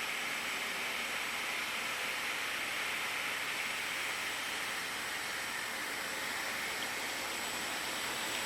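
Steady hiss of CNC machining equipment at work on plastic parts, with a faint high steady whine.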